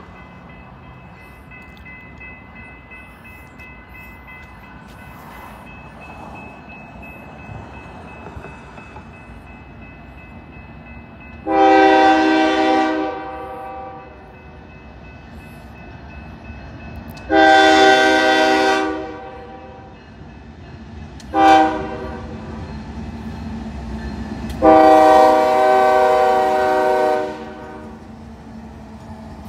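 BNSF diesel freight locomotive's air horn sounding the grade-crossing signal: two long blasts, a short one, then a final long one. Beneath it the low rumble of the approaching train grows toward the end.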